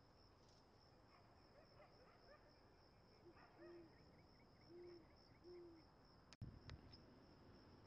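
Great horned owl hooting, four low hoots a little past the middle, over a steady high insect trill and faint higher chirping notes. A sharp click followed by a couple of low thumps near the end.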